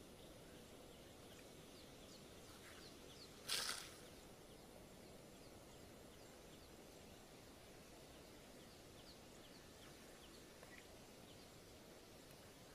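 Faint wild-grassland ambience: a steady low hiss with faint, high, short chirps of small birds, about two a second. About three and a half seconds in comes one short, loud, rasping hiss of noise.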